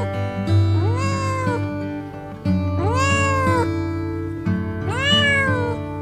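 Three drawn-out animal calls, each rising then falling in pitch and lasting about a second, over background music with a steady bass.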